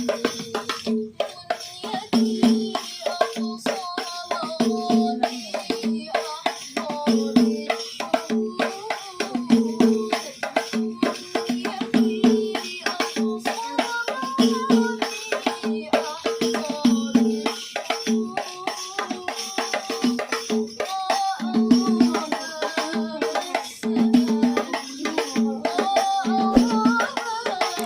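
Hadroh ensemble music: frame drums beating a steady, fast rhythm, with a wavering sung melody over them.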